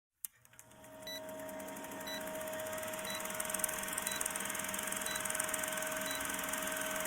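Steady electronic tones with a short, high beep about once a second, swelling in loudness over the first second and cutting off suddenly just after the end.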